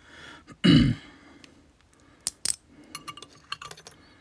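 Small metal lock parts of an Assa Twin Combi 4800 cylinder clicking and clinking as the lock is dismantled. There is a soft thump about three-quarters of a second in, then a scatter of sharp clicks and light metallic taps.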